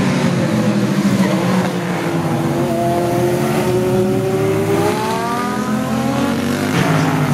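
Classic racing motorcycles with engines over 350 cc, built up to 1970, running hard past at racing speed. In the second half one engine's pitch climbs steadily as it accelerates, then breaks off near the end.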